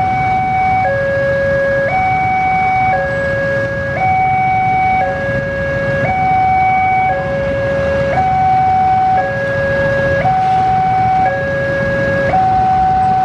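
Railway level-crossing warning alarm sounding its two-tone electronic signal, a higher and a lower tone alternating about once a second, the sign that the barriers are down and a train is approaching.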